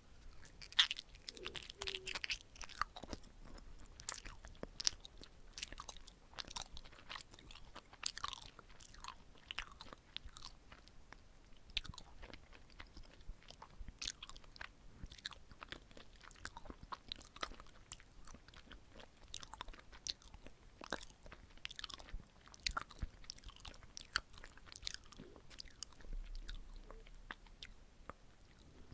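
Close-miked chewing of chapssal-tteok, sticky red-bean-filled glutinous rice cakes: wet, chewy mouth smacks and small sticky clicks, steady and irregular throughout.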